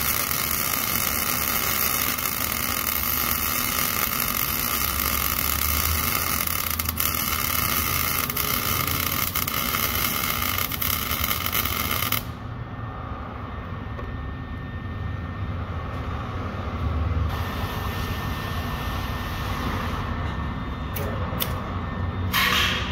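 MIG welder arc crackling steadily as a bead is run on an exhaust flex pipe joint, cutting off suddenly about halfway through. After a quieter stretch with a few clicks, the arc strikes again near the end.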